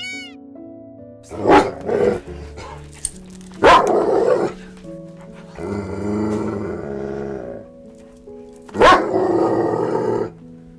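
A dog barking, a few loud barks spaced a couple of seconds apart, over background music.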